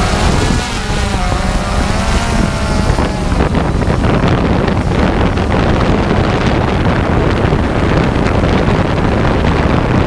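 Strong blizzard wind buffeting the microphone, a loud rushing roar with heavy low rumble. A wavering whistle runs over it for the first three seconds.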